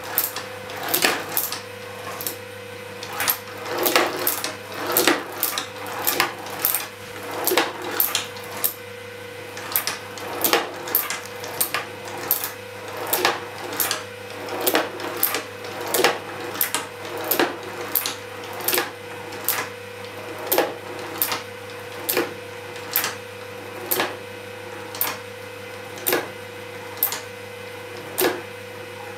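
Small toy mechanism knocking repeatedly, sharp clicks coming irregularly a bit more than once a second, over a steady hum.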